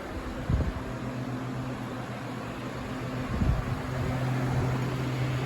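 A steady low mechanical hum that gets a little louder about four seconds in, with a couple of soft knocks about half a second and three and a half seconds in.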